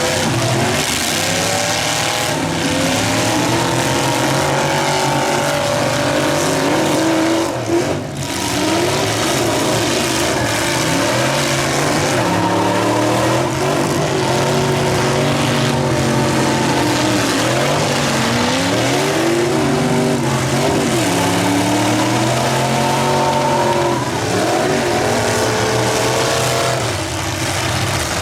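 Several demolition derby vehicles' engines running and revving together, their pitches rising and falling continuously.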